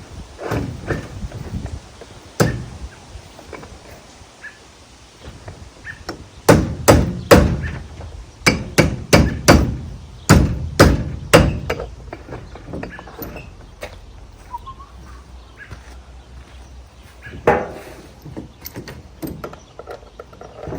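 Hammer blows on the wheelbarrow's wheel assembly as the axle, spacers and bushing are knocked into place. A single blow comes a couple of seconds in, then a run of about fifteen quick strikes, roughly three a second, and one more blow near the end.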